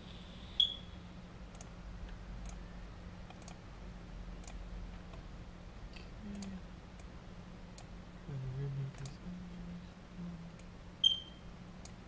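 Faint, short clicks about once a second over a steady low hum, with two sharper ringing ticks, one near the start and one near the end.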